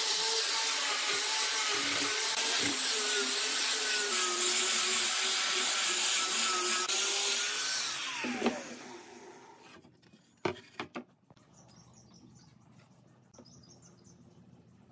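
Angle grinder fitted with a sanding disc sanding a glued-up pine board, its motor whining steadily under load. About eight seconds in it is switched off and spins down with a falling whine, followed by a few light knocks.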